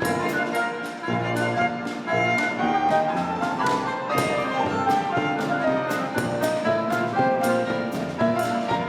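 Klezmer ensemble playing a lively sirba dance tune: a melody on clarinet and violin over piano, acoustic bass and percussion, with a steady beat.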